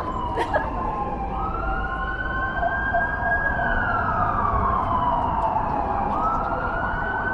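Emergency vehicle siren wailing in slow cycles: the tone climbs quickly about a second in, holds high for a couple of seconds, slides slowly down, then climbs again about six seconds in. Steady city street noise runs underneath.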